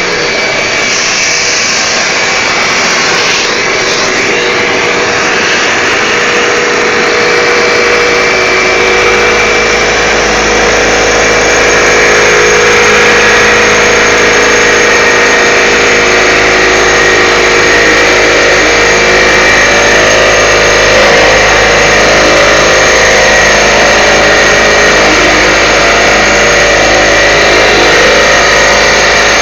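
A pillar drill and a dust-extraction vacuum running together: a loud, steady motor whine with several held tones. It grows louder about eight seconds in as a low hum joins.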